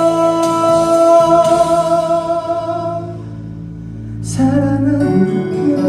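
A man singing live through a microphone holds a long note that fades out about three seconds in. About four seconds in, the accompaniment comes back in with a sharp new chord.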